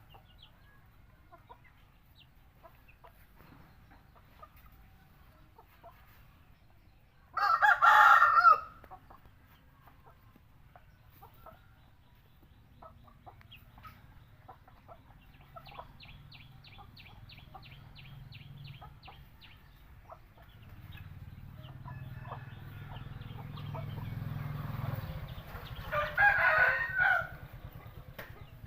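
Rooster crowing twice, about eight seconds in and again near the end, each crow lasting about a second, with faint clucking and scattered small clicks from the flock in between.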